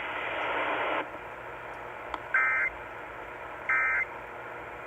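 Emergency Alert System end-of-message data bursts: after about a second of radio hiss, two short, raspy digital tone bursts about a second and a half apart, each lasting about a third of a second. They mark the end of the flash flood warning broadcast.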